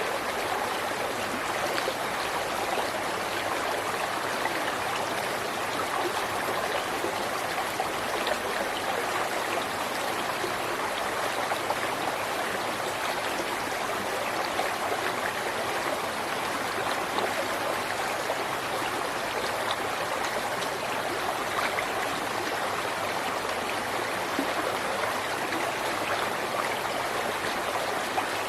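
River water flowing and babbling steadily over rocks, a constant rushing with fine splashy detail.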